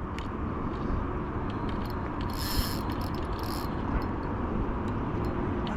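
Fixed-spool fishing reel being wound while a hooked fish is played, a steady mechanical whirr of the reel's gears, with two short higher rasping bursts around the middle.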